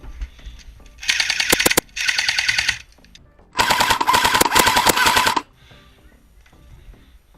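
Airsoft light machine gun firing three full-auto bursts of rapid shots: two short bursts about a second in, then a longer burst of nearly two seconds.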